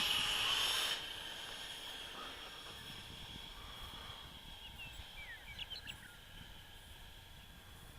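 High, steady whine of the Freewing F-5 model jet's electric ducted fan on landing approach. It drops sharply about a second in as the throttle comes back, then fades slowly.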